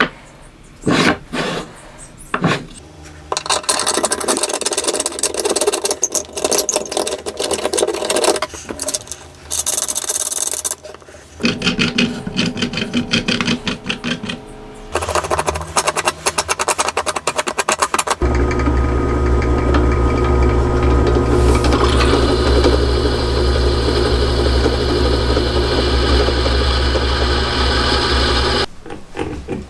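Hand work on a wooden vise, with clicks and scraping, rubbing noise from its steel screw and handle being turned. Then a drill press runs steadily for about ten seconds, drilling into a metal hex nut, and stops near the end.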